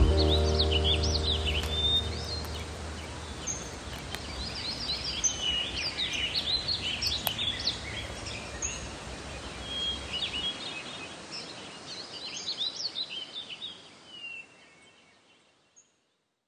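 Birds chirping and singing in outdoor ambience, with many short, quick chirps. Background music fades out in the first couple of seconds, and the whole sound fades away near the end.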